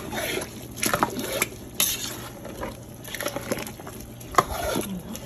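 A metal spoon stirring rice and sauce in a cooking pot, scraping and knocking against the pot, with a sharp clink about four seconds in.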